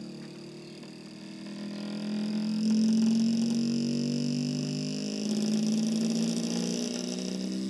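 Music playing from cassette tape through a Pioneer CK-3 portable component system: long sustained low notes that swell and fade slowly, growing louder about two seconds in.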